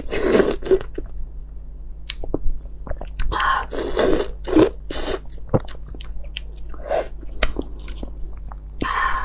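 Close-miked eating of whole cooked red shrimp: wet sucking at the shrimp heads and crunchy bites on the shell, with chewing in between and a few sharp clicks of shell.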